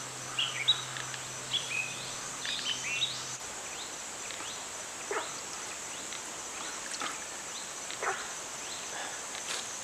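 Outdoor pond-side ambience: small birds chirping in short, scattered calls, most of them in the first few seconds, over a steady high-pitched drone.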